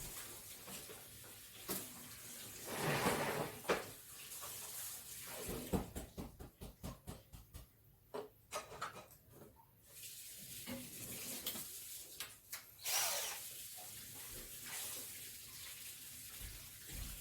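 Tool and handling noises from work on a flat-screen TV: scraping and rustling of parts, with a quick run of sharp clicks in the middle.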